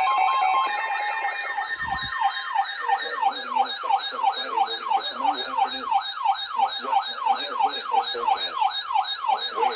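Emergency alert tones from alert receivers. A steady two-tone attention signal stops about 1.7 seconds in, while a loud siren-style warble keeps sweeping up and down about three times a second.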